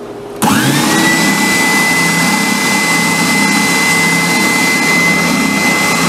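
Oscillating spindle sander and the shop vacuum on its dust hose switching on about half a second in, the vacuum's whine climbing quickly to a steady high pitch, then both running steadily.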